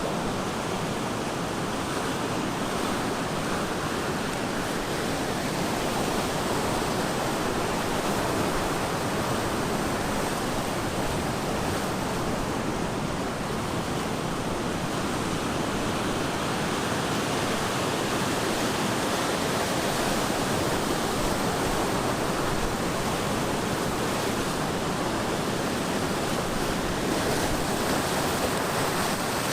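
Ocean surf breaking on the shore, a continuous steady wash of waves with only slight swells in loudness.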